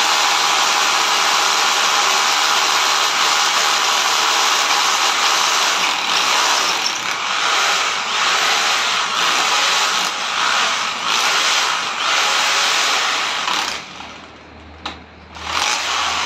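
Power drill running hard against the awning's frame, steady at first and then in short on-off pulses of the trigger from about six seconds in. It stops near the end, followed by a sharp click.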